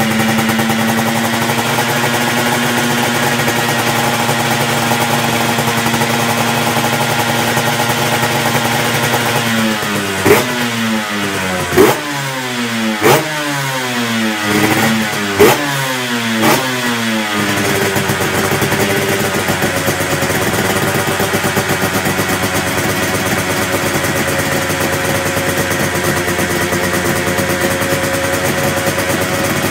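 Honda NSR250's two-stroke V-twin running through aftermarket expansion-chamber exhaust. It idles steadily, then is blipped about six times in quick succession with sharp rises and falls in pitch from about ten seconds in, then settles back to idle.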